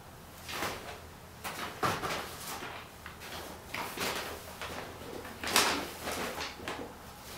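Irregular rustling and handling of a bag, broken by a few sharp knocks of the kind a cupboard or drawer makes, the loudest knocks about two seconds in and just past the middle.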